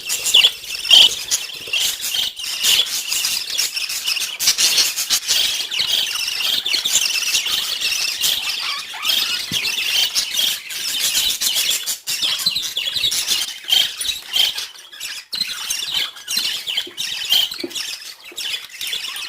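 Pet budgerigars chirping and chattering, several birds at once in a continuous busy stream of short, overlapping squawks and warbles.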